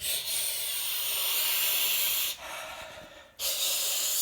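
Air blown in two long hissing bursts to dry a tooth before gluing it: a long blast at the start, then a shorter one near the end.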